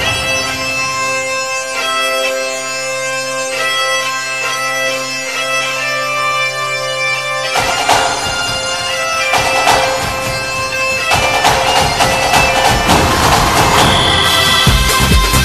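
Music: a reedy wind-instrument melody over a steady low drone. The drone stops about halfway through, and a pulsing bass beat comes in near the end.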